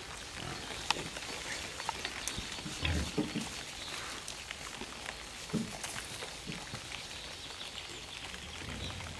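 Wild boars grunting in short low bursts, about three seconds in, again around five and a half seconds and near the end, over a constant crackling with many small clicks.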